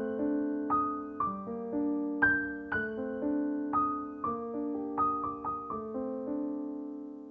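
Slow, gentle piano music, with notes and chords struck roughly every half second and left to ring and fade.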